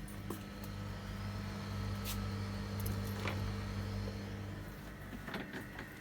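Steady low electrical hum of a small running machine, with a few light clicks; the hum stops near the end.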